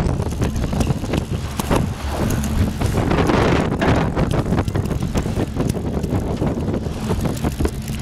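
Wind buffeting the microphone over the low rumble of a boat at sea, a steady rough noise with irregular small knocks.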